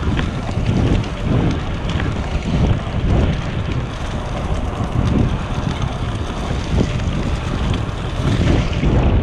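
Wind buffeting a GoPro's microphone while riding a bicycle at speed, a low rumbling rush that swells and dips irregularly. A few light ticks show through.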